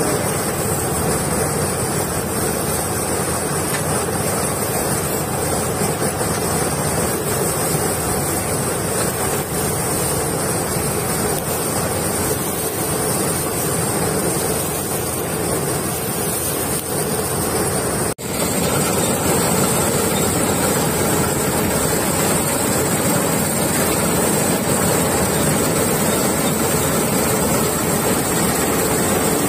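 Combine harvester running steadily under load, its engine and threshing gear working as the header feeds dried crop stalks. The sound breaks off briefly about two-thirds through and resumes.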